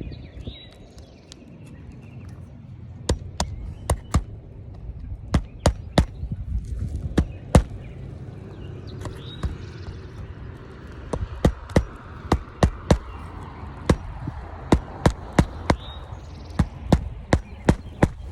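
Hammer striking repeatedly: scattered single blows at first, then quick runs of about two to three blows a second.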